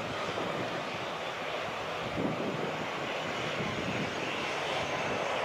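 Airbus A380's four jet engines running at low taxi thrust, a steady rushing hum as the airliner rolls slowly on the runway.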